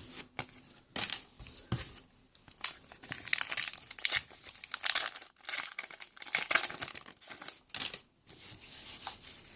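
Foil wrapper of a trading-card pack crinkling and tearing as it is opened, in irregular crackling bursts.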